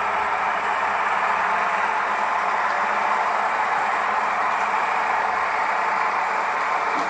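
HO-scale model goods train running past at a steady speed, pulled by a consist of model diesel locomotives: an even running noise of wagon wheels on the rails and the locomotives' motors.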